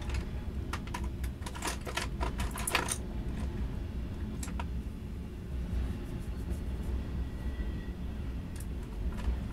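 Freight train of autorack cars rolling past: a steady low rumble of wheels on rail, with a quick run of sharp clicks and clanks in the first three seconds and a few more near the end.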